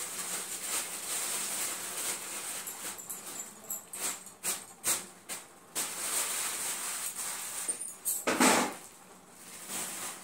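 Rustling and crackling of greens and a plastic bag being handled at the kitchen counter, with a loud handling bump about eight seconds in.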